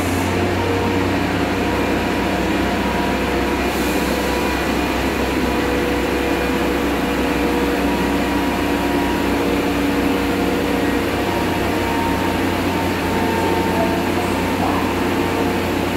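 Korail Line 3 electric subway train standing at the platform with its doors open, its onboard equipment and air conditioning humming steadily with several held tones, and a short faint hiss about four seconds in.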